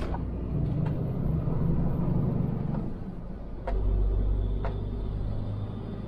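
Semi-trailer truck's diesel engine running while driving, heard from inside the cab as a steady low rumble; the engine note drops away briefly about three seconds in and picks up again just before four seconds, with a few sharp clicks.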